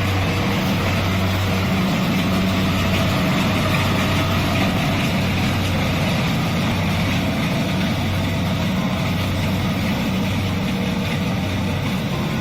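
Kubota DC-70 combine harvester running steadily while harvesting rice: a constant diesel engine drone with a broad, even mechanical hiss over it.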